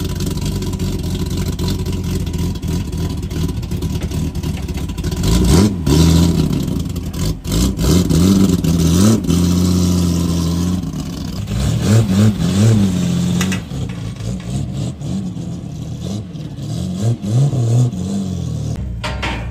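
VL Commodore speedway stock car's engine running, with the throttle blipped again and again so the revs rise and fall in short bursts over a steady idle.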